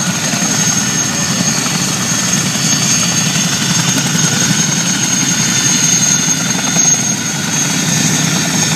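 Boeing CH-47 Chinook tandem-rotor helicopter running steadily, a high turbine whine held over the rotor noise.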